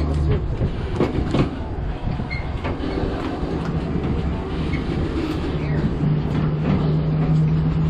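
Open tram cars rolling over rough ground, rattling and knocking a couple of times about a second in, over a steady low rumble. A steady motor drone grows stronger near the end.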